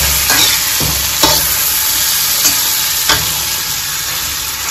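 Chana sizzling in a hot kadhai while a metal spatula stirs it, scraping against the pan several times.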